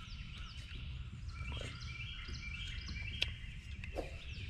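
Several wild birds chirping and calling in short, repeated, falling notes, over a low steady rumble, with two light taps about three and four seconds in.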